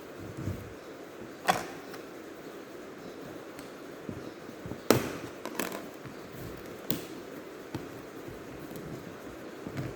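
Scattered sharp clicks and knocks from handling a laptop during disassembly, about half a dozen spread a second or more apart, over a steady hiss. The loudest two come about a second and a half in and about halfway through.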